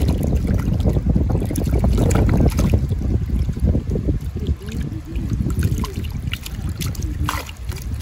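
Water splashing and sloshing as a netful of small fish thrash in a landing net held in flowing creek water, over a heavy rumble of moving water and wind on the microphone. The splashing is busiest in the first half and eases off after the middle.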